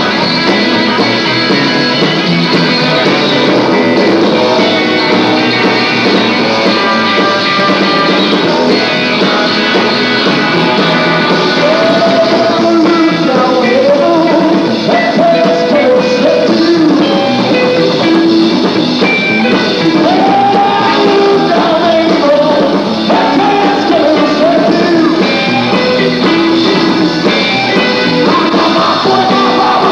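Live band playing a short R&B song on drums, double bass and electric guitars. A man starts singing over the band about twelve seconds in.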